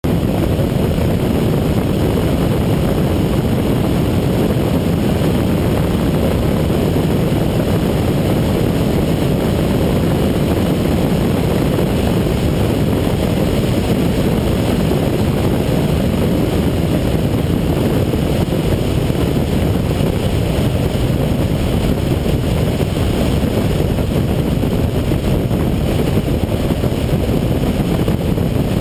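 Car at about 100 mph through a fast sweeper: a steady, deep rumble of wind and road noise with no distinct engine note.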